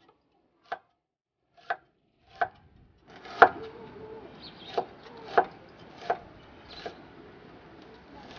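Cleaver chopping a red onion on a thick round wooden chopping block: about eight sharp knocks of the blade striking the wood, roughly one a second, the loudest about three and a half seconds in.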